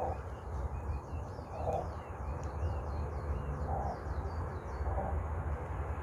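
Small birds chirping in quick, repeated falling notes, with a dove cooing every second or two, over a steady low rumble.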